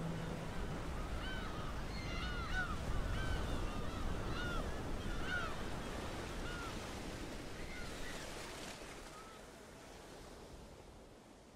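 Sea surf washing steadily on a beach, with many short, arching bird calls over it for most of the stretch; the whole sound fades out near the end.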